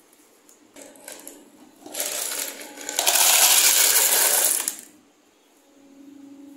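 Dry pasta poured from a plastic tub into a plastic storage container: a dense rattle of hard pieces hitting plastic. It builds about two seconds in, is loudest for nearly two seconds, then stops abruptly. A few light clicks of plastic being handled come before it.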